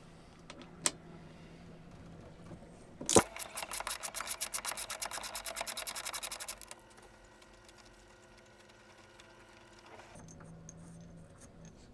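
Hand ratchet wrench clicking rapidly and evenly, about ten clicks a second for three to four seconds, as the bolts at the mast's compression post are backed off. A sharp knock comes just before the clicking starts, and a single click sounds about a second in.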